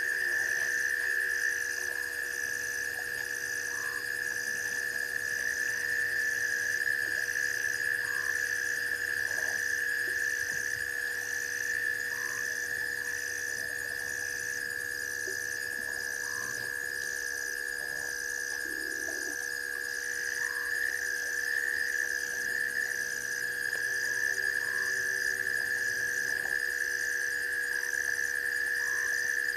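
Night chorus of frogs and insects at a waterhole: a steady high trilling, with a higher call pulsing about once a second and a softer call repeating every few seconds.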